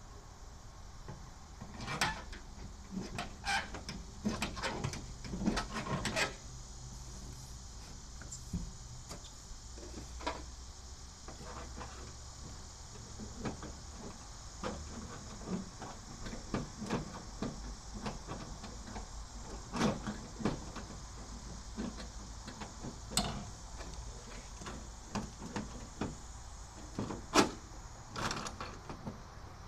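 Irregular clicks, knocks and scrapes from the rear tailgate window glass of a 1976 Chevy Blazer being pushed and worked in its frame, busiest a couple of seconds in and again near the end.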